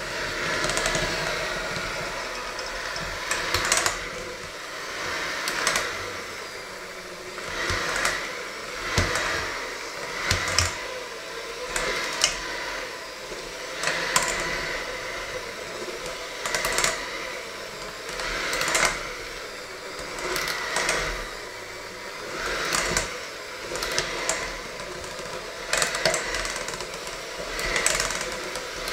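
Electric hand mixer running steadily, its beaters churning a thick mixture and knocking and scraping against a stainless steel bowl every second or two.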